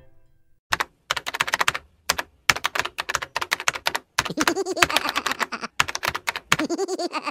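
Keyboard typing sound effect: rapid, irregular keystroke clicks with short pauses between runs, starting under a second in.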